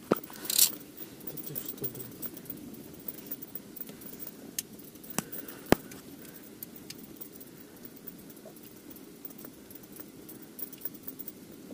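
Handling noise from a small winter jigging rod being worked over an ice hole: a rustle near the start, then scattered light clicks, the sharpest two just past five seconds in, over a faint steady low background noise.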